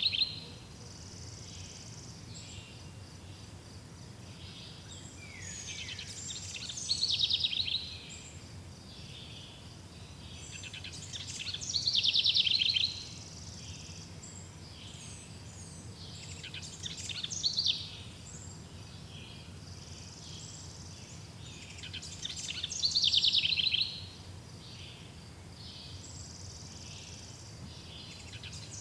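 Birdsong: one bird repeats a similar, loud song phrase about every five to six seconds, each phrase a quick, trill-like run of notes. Between the phrases a faint, steady, high-pitched background hiss continues.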